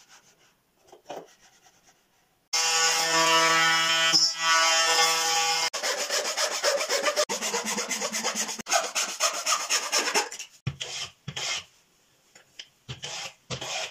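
Hand woodworking: about two and a half seconds in, a loud scraping with a steady pitched ring sets in, followed by a wooden frame saw cutting through a board in quick, rhythmic back-and-forth strokes. Near the end, a few separate strokes and knocks of a wooden hand plane on thin wooden slats.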